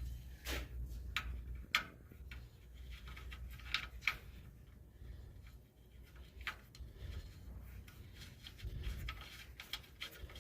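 Metal transmission-line fittings being handled and threaded into the radiator by hand: faint, scattered sharp clicks and light scrapes over a low steady hum.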